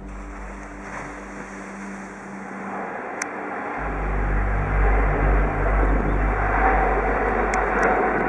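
Boeing 777-300's twin jet engines at takeoff power: a broad roar that swells from about three seconds in and stays loud as the airliner rotates and climbs away.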